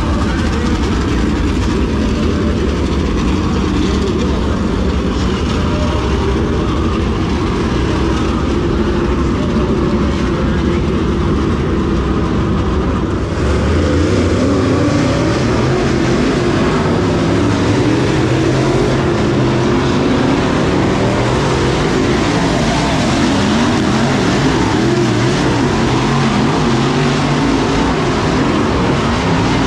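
Dirt-track race cars' engines running laps around the oval, rising and falling in pitch as the cars power through the turns and pass by. The sound steps up a little about halfway through.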